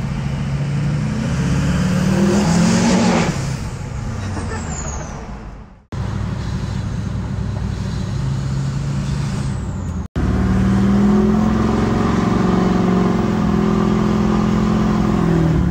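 2004.5 LLY Duramax 6.6-litre V8 turbodiesel with a straight-piped 5-inch exhaust, heard from inside the cab: the engine note climbs under acceleration and then eases off, and later settles into a steady drone at cruise. Twice a high turbo whistle falls away as the throttle lifts.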